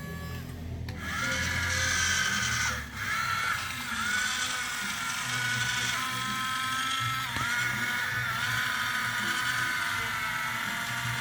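Small electric motors and gearboxes of RC model construction machines whining steadily, starting about a second in. The pitch dips briefly a few times, as the motors slow under load.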